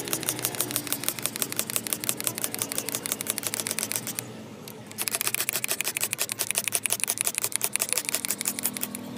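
Rapid, even clicking and rattling from a handheld cleaning tool worked against the carpeted back of a car seat. The clicking breaks off for about a second a little after four seconds in, then carries on.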